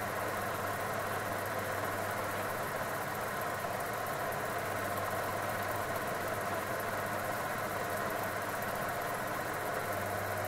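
Milling machine running steadily with its gear cutter spinning on the arbor, a constant motor hum with no change in pitch.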